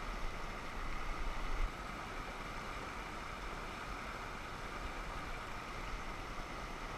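Steady rush of a fast, rocky river running through broken white water. A low rumble sits under it for the first second or two.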